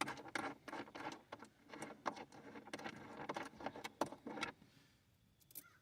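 Irregular metallic clicks and rattles of a battery cable lug and terminal hardware being handled and fastened onto the negative terminal of a lithium battery, stopping about four and a half seconds in.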